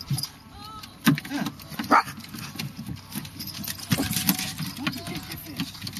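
Yorkshire terriers yapping at a small fish on the deck, with a few sharp yaps, the loudest about one and two seconds in, over lower fussing sounds.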